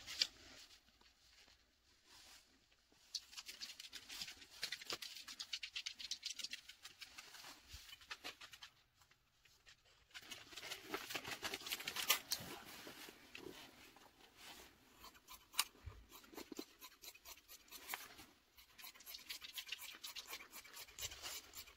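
Fabric shears cutting through folded stretch fabric in runs of quick snips, mixed with the rustle of paper and cloth being handled. It comes in two stretches with a short pause between.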